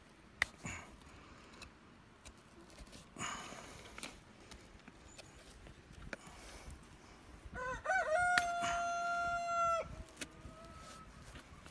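A rooster crowing once, about eight seconds in: a few short wavering notes that lead into one long held note of about two seconds, which cuts off.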